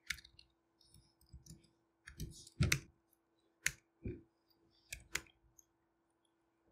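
Keystrokes on a computer keyboard: irregular, short key clicks as commands and a password are typed, a few of them louder than the rest.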